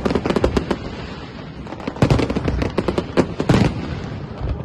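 Fireworks display: rapid strings of sharp cracks and bangs, thinning out about a second in and coming back in a dense crackling burst about two seconds in.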